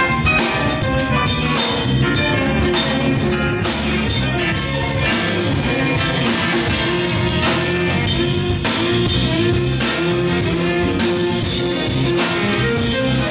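A live band playing instrumental music: electric guitar, violin, congas and drum kit over a steady beat, with a long held note through the second half.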